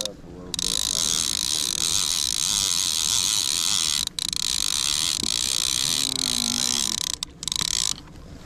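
A large conventional fishing reel being cranked steadily, its gears whirring as line is wound in against a heavy fish. The cranking stops briefly about four seconds in and again twice near the end.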